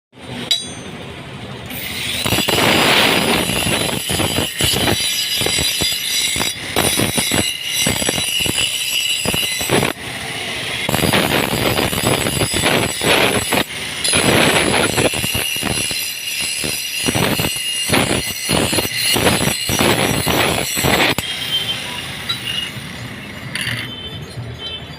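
An iron tool being sharpened: metal scraping in repeated strokes with a high, steady squeal, easing off near the end.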